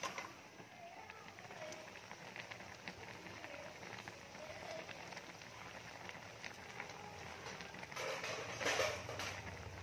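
Pots simmering on a stove: a steady bubbling and sizzling from boiling pork-bone chayote soup and a clay pot of braised fish. The sound grows louder and noisier for about a second, about eight seconds in.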